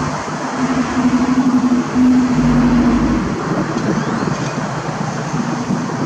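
Road traffic: vehicles running along a busy street, with a deeper engine rumble loudest about two and a half seconds in.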